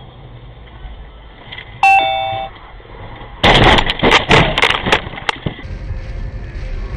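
Dashcam car collision: a loud crash of several sharp impacts and rattling over about two seconds, preceded by a brief two-note tone. Steady road noise follows.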